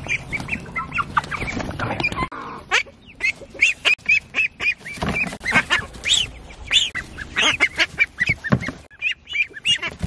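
Ducklings and a gosling peeping: many short, high peeps overlapping and repeating as the birds are caught by hand and put into a tub.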